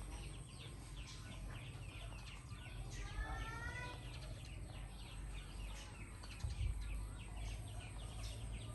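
Birds chirping over and over in short, quick, high chirps, with one longer pitched call about three seconds in. A steady low hum runs underneath.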